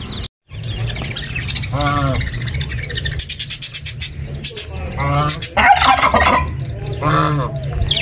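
Domestic fowl and chicks calling: several short, lower calls, with a quick run of high chirps about three seconds in.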